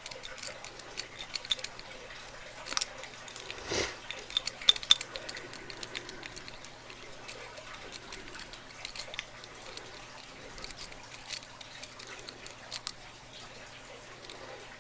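Lock picking tools clicking and scraping inside a lock's keyway as the pins are worked: irregular small metallic ticks, with a couple of sharper clicks about five seconds in.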